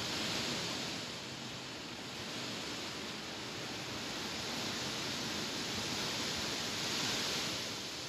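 Wind gusting through tall grass, the blades rustling in a steady hiss that swells shortly after the start and again near the end.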